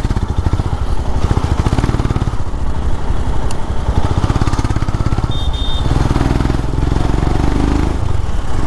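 Motorcycle engine running steadily as it is ridden along a road.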